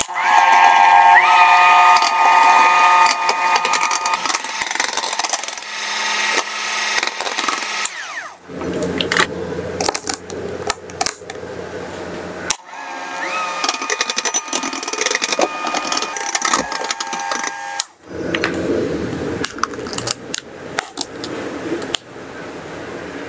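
Electric hand mixer whipping heavy cream in a glass bowl: a steady motor whine that steps up in pitch about a second in, with scattered clicks. The whine stops about eight seconds in and comes back for several seconds in the middle, with softer, lower sound between the two runs.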